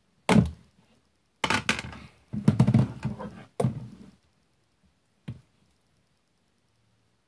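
A slime container being handled and its slime poked with a spoon: a sharp knock, then about two seconds of clattering, scraping handling noise, another knock, and a last light tap about five seconds in.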